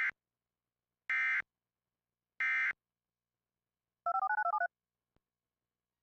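Emergency Alert System end-of-message signal: three short bursts of screeching digital SAME data tones, about a second apart, marking the end of the alert. Near the end comes a quick string of touch-tone (DTMF) beeps.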